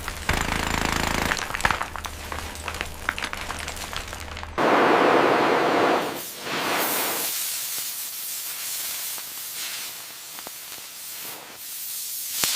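Demolition work noise: rapid clicking and clattering over a low hum, then a sudden switch to a loud hiss that slowly dies away.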